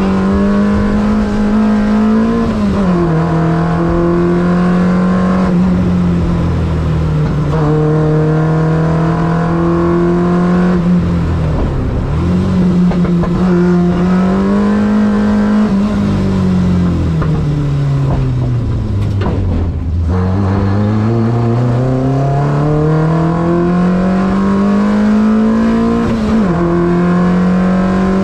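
Peugeot 106 race car's 1.4-litre four-cylinder engine, heard from inside the cabin under hard driving. The engine note climbs and drops sharply at gear changes. About two-thirds through it falls steadily as the car slows, then climbs again through the gears.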